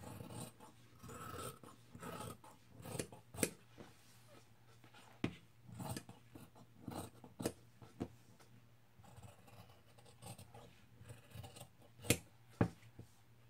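Dressmaking shears cutting through layered cotton wax-print fabric, a run of irregular snips with sharp clicks of the blades closing.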